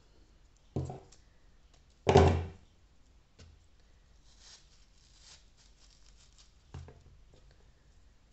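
Dried gypsophila stems being snapped and handled, with faint dry crackling. Dull knocks come from hands and the foam sphere against a wooden workbench: one loud knock about two seconds in, and a few softer ones.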